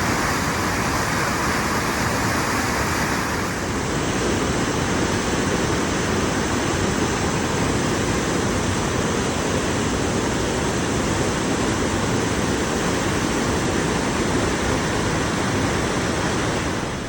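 Nevada Fall's water rushing over the cliff: a loud, steady wash of noise with no break. About four seconds in it turns deeper and fuller, with less hiss on top.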